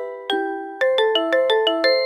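Mobile phone ringtone on a 360 N6 Lite playing a bell-like mallet melody of struck notes, each one ringing and fading. Two spaced notes come first, then a quick run of about six notes in the second half.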